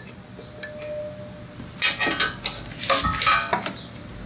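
Metal pump oil can clicking and clinking against the engine's metal while oil is squirted onto the starter. A handful of sharp metallic clinks come in a cluster past the middle.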